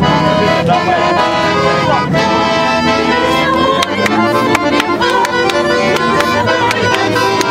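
Several women singing a song together to an accordion. A sharp, regular beat of taps joins in about three seconds in.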